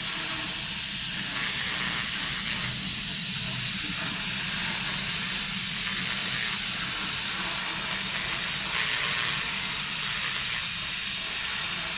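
Handheld fiber laser cleaning head firing on a rusty steel square tube, ablating the rust: a steady high hiss with a low hum beneath.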